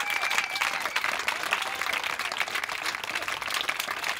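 Crowd applauding, a dense steady clapping.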